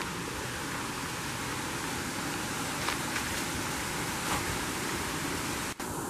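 Steady rushing of water from a rocky brook, an even hiss with no distinct events, broken by a brief dropout near the end.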